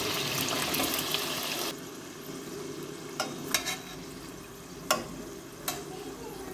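Samosas shallow-frying in hot oil in a stainless pot. The sizzle is loud at first, drops suddenly to a quieter sizzle a little under two seconds in, and a spatula clicks against the pot a few times as the pieces are turned.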